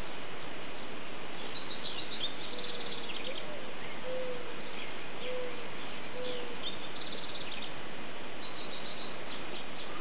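Wild birds calling: scattered high chirps and quick trills, and a run of five short, lower calls about a second apart. A steady hiss of background noise lies under them.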